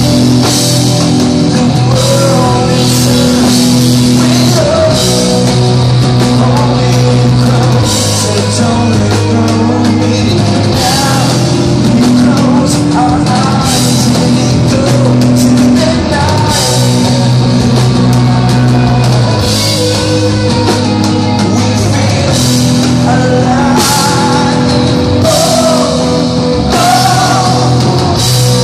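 Live rock band playing: electric guitar, bass and drums, with a man singing in some passages.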